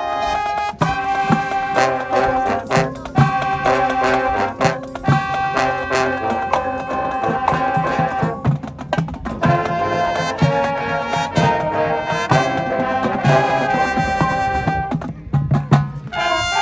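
High school marching band playing: brass (trumpets and trombones) sounding held chords over drumline strokes, with a brief percussion-led break about halfway through.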